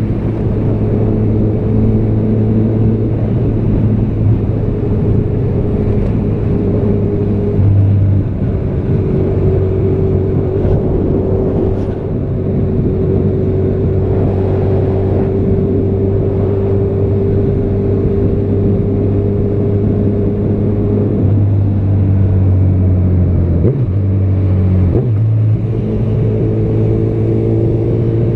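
Honda CB1000R's inline-four engine, fitted with a Yoshimura R77 exhaust, running at steady cruising revs while riding. The note holds steady for long stretches, shifts a few times, and breaks off twice briefly near the end.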